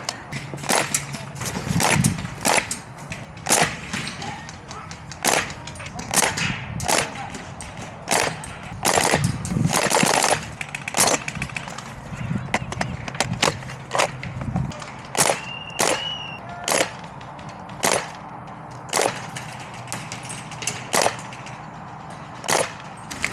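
Airsoft guns firing: sharp pops, mostly single shots at irregular intervals about a second apart, with a denser run of shots around nine to ten seconds in.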